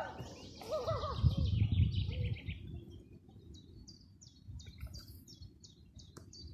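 Wild birds calling: a few arching, gliding calls and a quick falling run of chirps in the first couple of seconds, then a steady series of short high chirps, about three a second. A low rumble joins in from about a second to two and a half seconds in.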